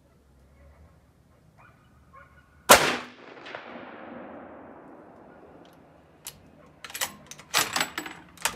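.308 Remington 783 bolt-action rifle firing a single shot about three seconds in, the sharp report followed by a rolling echo that fades over the next few seconds. Near the end, a quick run of sharp metallic clacks as the bolt is worked.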